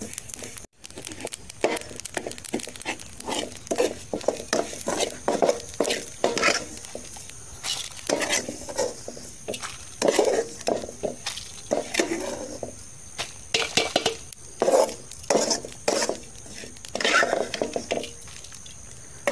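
Metal ladle scraping and clinking irregularly against a steel kadai while fried mustard and cumin seeds are stirred and scooped out of the hot oil, with a light sizzle.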